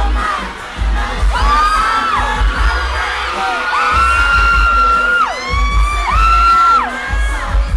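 A crowd of fans screaming: several high-pitched shrieks, each rising, held for about a second and falling away, overlap one another. Under them runs a low, uneven thudding.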